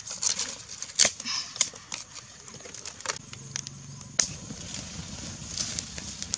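Wood fire crackling, with irregular sharp pops, the loudest about a second in and about four seconds in.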